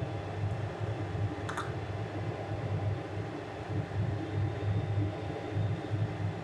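A steady low rumble runs throughout, with a single light click about one and a half seconds in as raw eggs are set one by one into a stainless-steel bowl of water.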